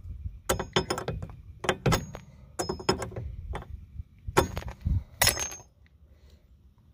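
Hammer striking steel tooling on a stuck inner wheel-bearing race on a BMW E30 front spindle, driving the race off: about ten sharp metal-on-metal strikes, several with a brief high ring, stopping a little before the end.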